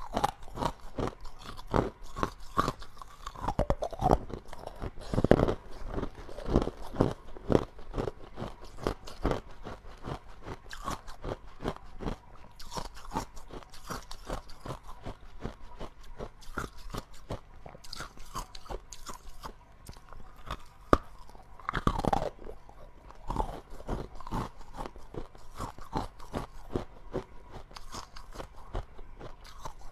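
A person biting and chewing chunks of frost-coated ice: dense crunching and crackling throughout, with a few louder bites about five seconds in and again past twenty seconds.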